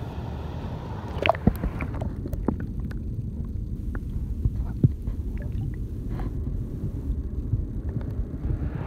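Creek current heard through a camera held underwater: a muffled low rumble of flowing water, with scattered sharp clicks and pops from the stream.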